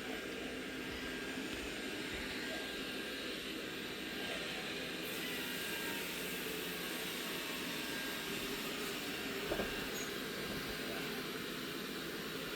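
Robot vacuum cleaner running with a steady whir. A single short knock about three-quarters of the way through.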